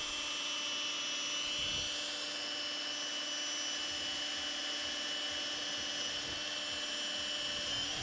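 Makita cordless drill running at a steady speed, its bit drilling a hole all the way through a metal part of a small milling machine. The drill's pitch stays even, then it is let off right at the end.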